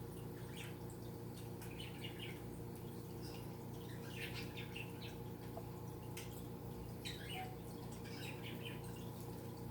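Small birds chirping in short, repeated calls about once a second, over a steady low hum.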